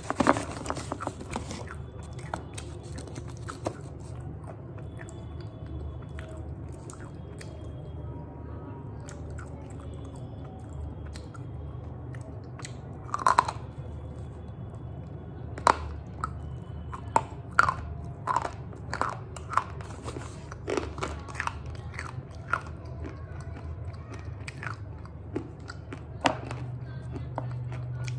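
Slate pencils being bitten and chewed: sharp, crisp snaps and crunches, one at a time, coming thick from about halfway through. At the start, the cardboard packet of pencils rustles as it is handled.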